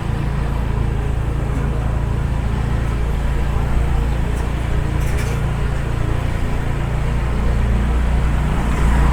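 Car running at low speed, heard from inside the cabin: a steady low hum of engine and road noise.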